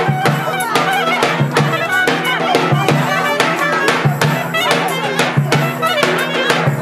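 Traditional folk dance music: an ornamented reed or wind-instrument melody over a steady drum beat.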